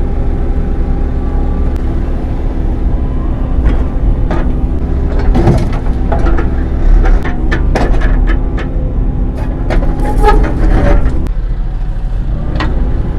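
Excavator diesel engine running steadily, with a string of sharp knocks and clanks from about four seconds in as broken concrete is handled. The engine hum drops away near the end.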